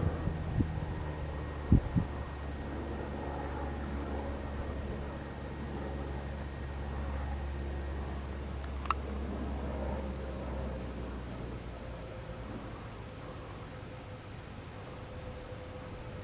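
A steady, high insect chorus drones on, over a low rumble that fades in the second half, with a few faint clicks.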